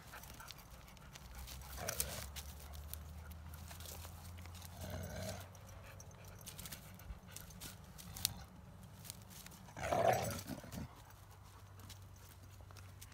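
Kangal dogs (Anatolian Shepherd Dogs) scuffling in a dominance fight, giving three short vocal outbursts, the loudest about ten seconds in, with a few light clicks between.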